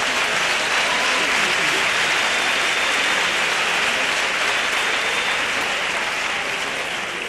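Theatre audience applauding: dense, steady clapping that eases off near the end.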